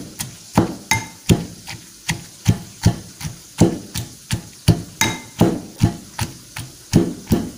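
Metal pestle pounding softened chillies, shallots and tomato coarsely in a metal mortar for sambal: a steady run of knocks, about two to three a second, a few of them ringing briefly.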